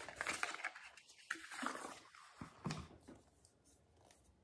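Cardboard box being opened and handled: rustling, scraping and a few light clicks as the flaps are worked and a plastic bottle is drawn out. It stops about three seconds in.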